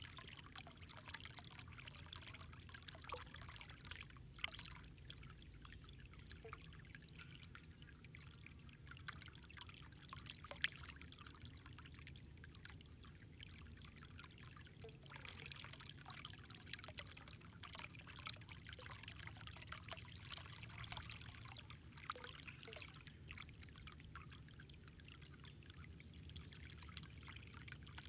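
Faint, steady trickle of water at a pond, with a fine crackle of many small ticks running through it.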